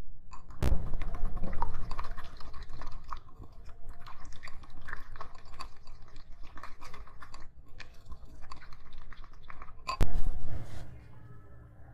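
Plastic spoon stirring a thick, wet slime mixture in a glass bowl: a dense run of small wet clicks. There is a sharp knock just under a second in and a louder one about ten seconds in, when the stirring stops.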